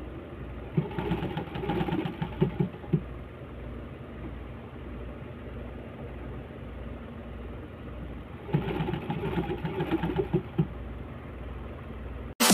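Black Singer sewing machine stitching in two short runs of rapid clatter, about a second in and again near the end, with a steady low hum between.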